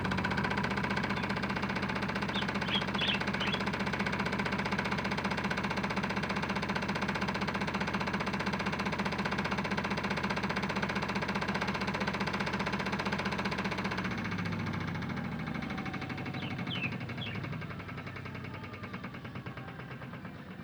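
Small electric motor of a modified Hotpoint Ultima WM75 toy washing machine spinning its drum unbalanced, with a steady hum and fast rattle. About two-thirds of the way in the pitch drops and the sound fades as the spin winds down.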